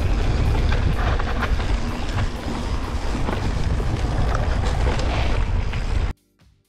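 Wind rushing over the microphone with a heavy low rumble and scattered rattling clicks from a full-suspension mountain bike riding over rough trail. It cuts off abruptly about six seconds in.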